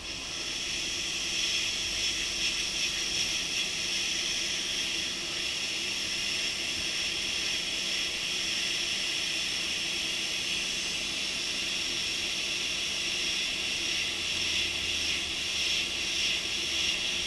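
Hot air rework station blowing a steady hiss of hot air onto the phone's logic board, reflowing a reballed chip so it settles into place. The air starts right at the beginning and builds over the first second.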